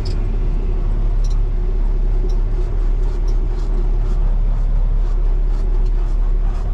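Peterbilt 389 semi truck's diesel engine running at low speed as the truck creeps forward on gravel, heard inside the cab as a steady, even drone.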